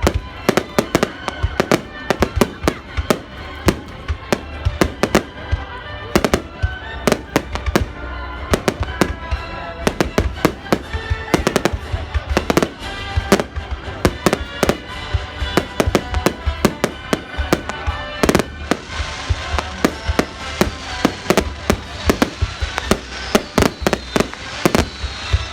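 Rapid barrage of firework bangs, several a second and unbroken, with music underneath. From about 19 s a hiss and falling whistling tones join the bangs.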